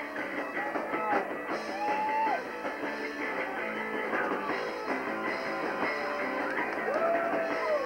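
Rock band playing live, led by electric guitar, with long held notes that bend at their ends. The sound is thin, with little bass.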